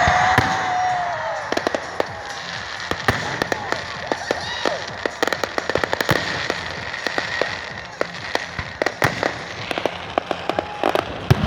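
Fireworks display going off: a dense, irregular run of sharp crackles and pops from bursting shells.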